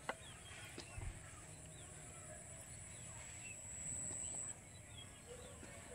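Faint outdoor ambience of birds calling, with short chirps and a lower fowl-like call near the end, over a steady high-pitched hum. A couple of light knocks and a soft thump come in the first second.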